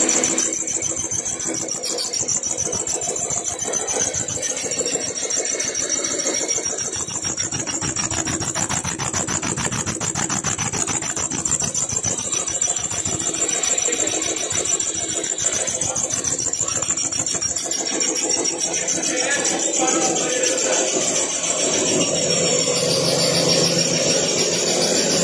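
Portable line boring machine running steadily, its boring bar turning in a worn pin bore to cut it true.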